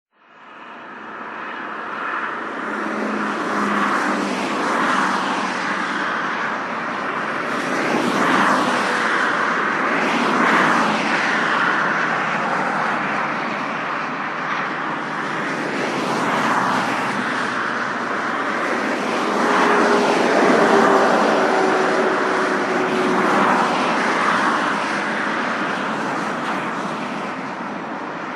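Highway traffic: cars passing one after another, tyre and engine noise swelling and fading every couple of seconds over a continuous roar. Fades in at the start.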